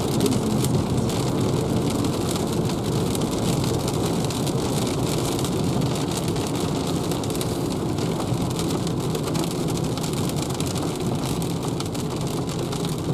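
Heavy rain pattering on the windscreen and roof of a moving Renault ZOE electric car, heard from inside the cabin with steady wet-road noise beneath. No engine sound: the car is electric.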